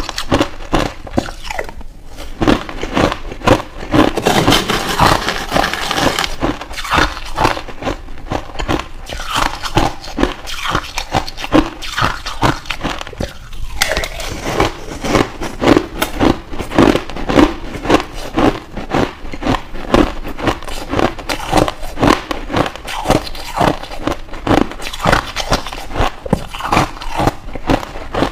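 Finely crushed ice chewed by a person close to a clip-on microphone: rapid, continuous hard crunches, with a brief pause about halfway through.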